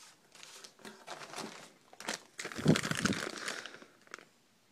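Clear plastic parts bag crinkling and rustling as hands lift it out of a cardboard box. It is loudest in the middle and fades near the end.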